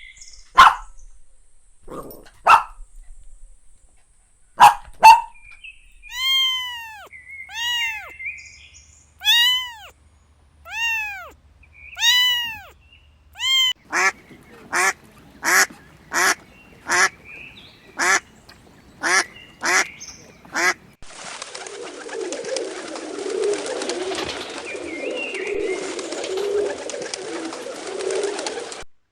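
A run of animal calls one after another: a few short, sharp calls, then a series of rising-and-falling calls, then short calls about two a second, ending in eight seconds of dense, noisy chatter.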